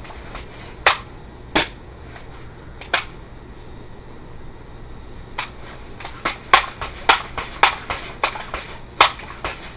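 A series of sharp mechanical clicks and knocks from a scoped air rifle being handled: three spaced clicks in the first few seconds, then a quicker run of about two to three a second in the second half.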